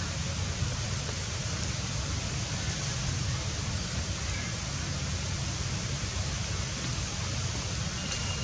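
Steady outdoor background noise: an even hiss over a low, fluttering rumble, with no monkey calls.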